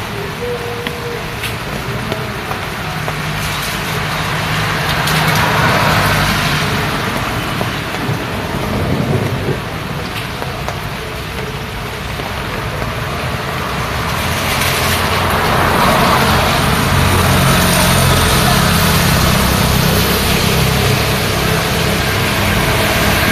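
Rain falling steadily on a roadside, with road traffic passing: engine hum and tyre noise swell as vehicles go by, once about five seconds in and again for a longer stretch from about fifteen seconds in.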